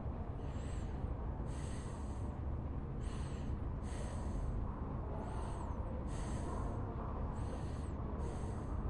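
Library room ambience: a steady low rumble with a soft, high-pitched sound repeating about once a second, alternating between a short hiss and a brief arching chirp.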